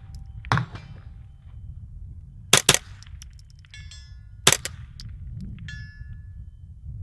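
Ruger 10/22 .22 LR rifle with an 18-inch Green Mountain bull barrel firing a few sharp shots, two of them in quick pairs. Steel targets ring with high metallic pings after hits.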